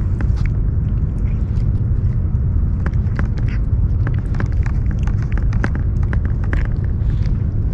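A cat eating from a paper bowl close up: irregular small clicks and smacks of chewing and licking, several a second, over a steady, loud low rumble.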